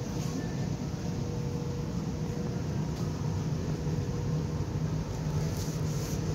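Steady low hum and hiss of a large store's background noise, with a faint steady tone.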